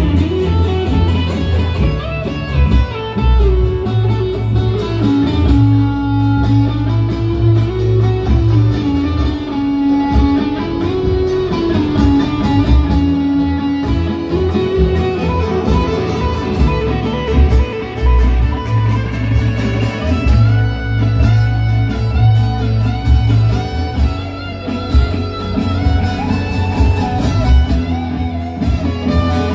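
Live electric guitar playing an instrumental passage: a melodic lead line with bent, gliding notes over a steady low bass accompaniment.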